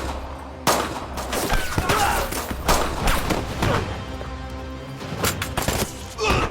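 Irregular gunshots and short volleys of gunfire over a dramatic music score in a film firefight.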